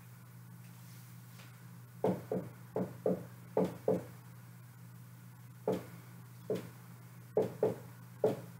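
Dry-erase marker knocking against a whiteboard as an equation is written: about eleven short, sharp taps, several in quick pairs, starting about two seconds in, over a faint steady low hum.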